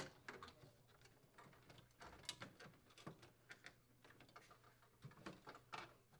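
Near silence with faint, scattered clicks and light knocks of gloved hands handling a freezer's evaporator coil, pressing the defrost heater wires into styrofoam blocks.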